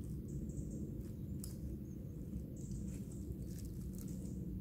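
Soft rustling and scattered light clicks of camping cook gear being packed into a fabric pouch by hand, over a steady low rumble.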